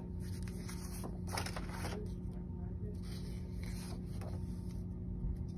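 Printed paper sheets being handled and pages flipped over, rustling a few times, loudest about a second and a half in, over a steady low hum.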